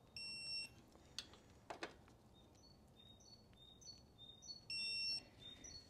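Digital torque wrench beeping twice, each beep about half a second long and the two about four and a half seconds apart, signalling that the set torque has been reached. Birds chirp in between.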